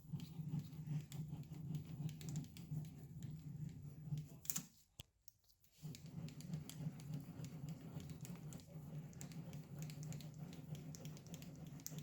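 Hand tools at work tightening the lathe's mounting bolts: rapid light clicking and rattling over a low hum, which drops out briefly about five seconds in.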